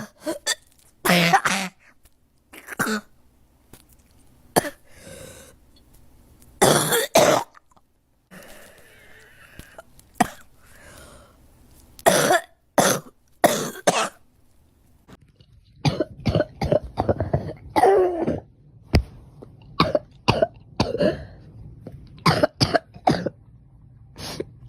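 A girl coughing over and over in short fits of several coughs each, with pauses between the fits; the longest run of coughs comes a little past the middle.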